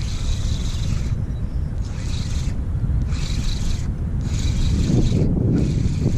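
Spinning reel cranked in short bursts, each a whirring lasting half a second to a second, stopping and starting again as a hooked fish is reeled in on a bent rod. Steady wind rumble on the microphone underneath.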